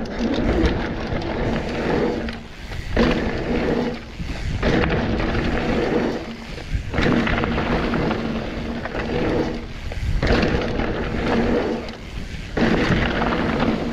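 Mountain bike ridden fast along a dirt jump line: knobby tyres roaring on hardpacked dirt, with wind rumble on the camera mic. The noise breaks off briefly about five times as the bike is in the air over the jumps.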